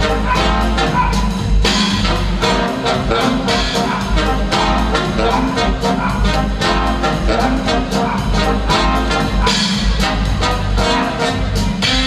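Brass-led band music with a fast, steady beat.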